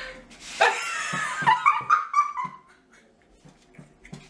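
Two women laughing hard, with high, squealing laughs for about the first two and a half seconds, dying down to faint, stifled giggles.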